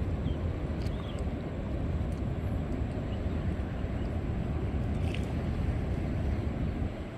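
Waves breaking on an offshore reef: a steady, deep surf rumble.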